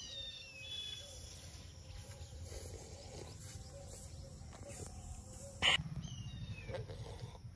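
Faint bird chirps, a few short falling calls, over a low background rumble, with one sharp knock about three-quarters of the way through.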